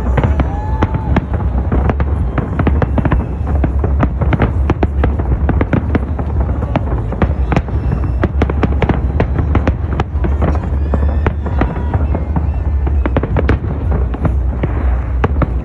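Dense fireworks display: many bangs and crackles in quick succession over a continuous low rumble.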